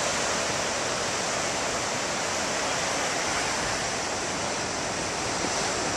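Steady rushing roar of rough ocean surf breaking along the beach, an even wash of noise with no single wave standing out.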